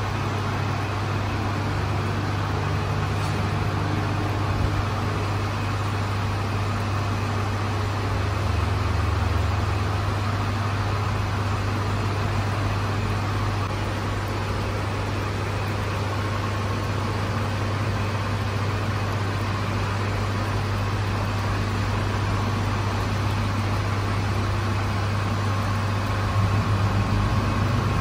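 Steady low mechanical hum with a rushing noise underneath, unchanging throughout.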